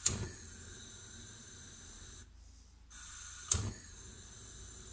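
Gas hob burner being lit: two sharp clicks about three and a half seconds apart, with a faint steady hiss of gas between them that drops out briefly.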